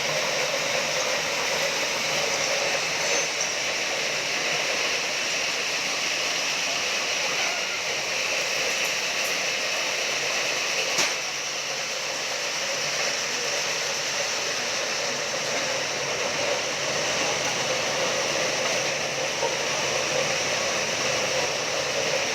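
Steady, unbroken machinery noise from concrete demolition equipment, with one sharp click about eleven seconds in.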